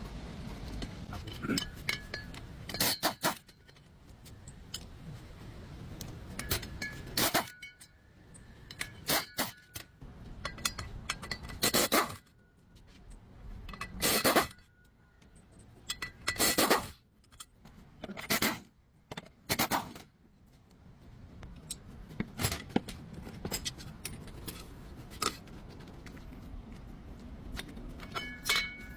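Metal tools and parts clinking and knocking against each other, irregularly about a dozen times, some strikes ringing briefly, over a low steady hum.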